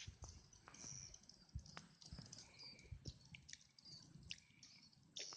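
Faint, scattered bird chirps over a low rumble of handling or wind noise, with a few light clicks.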